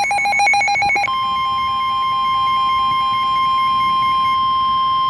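NOAA Weather Radio warning alert: rapid two-pitch beeping, then about a second in the steady 1050 Hz warning alarm tone starts and holds. It signals that a warning, here a severe thunderstorm warning, is about to be read.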